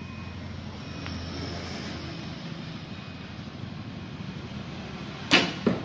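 Steady low background hum, then about five seconds in a barebow recurve bow with Nika limbs is shot: one sharp snap of the string, and a second, weaker knock a fraction of a second later.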